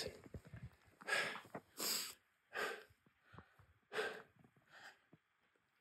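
A man breathing hard, about five heavy breaths over four seconds, out of breath from the effort of struggling through deep, soft snow.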